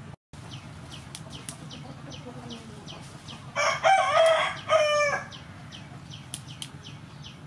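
A rooster crows once, a drawn-out two-part call about three and a half seconds in, over a run of short, quick ticks.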